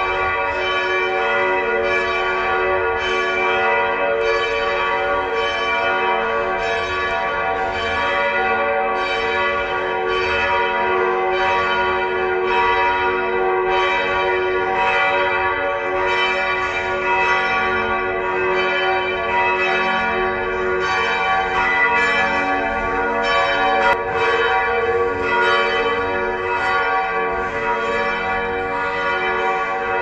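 Felsenkirche church bells ringing steadily, heard from inside the church. The strikes follow one another without a break, so their tones ring over one another.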